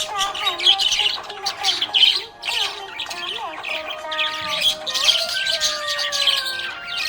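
Budgies chirping and chattering in a rapid, continuous stream of high squawks and tweets, over background music with long held notes.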